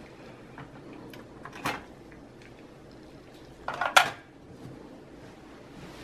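Light hardware clicks and clinks as the old processor is taken out of its LGA775 CPU socket and set down on the power supply casing: one sharp click about a second and a half in, and a louder cluster of clinks about four seconds in.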